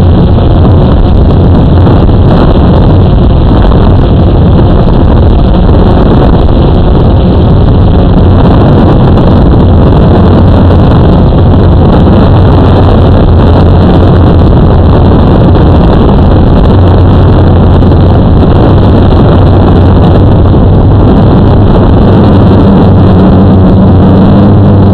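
Blade 350 QX quadcopter's brushless motors and propellers, a loud steady hum picked up by the camera riding on the drone, with wind on the microphone. The low hum strengthens in the later part as the drone climbs.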